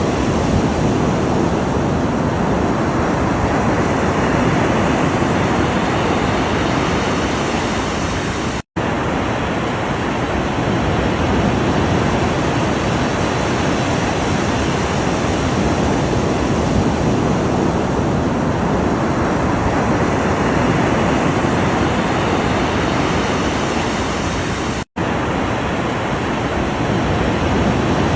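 Ocean waves washing in a steady, dense hiss that swells and eases slowly, broken twice by a sudden split-second dropout to silence, about nine seconds in and near twenty-five seconds.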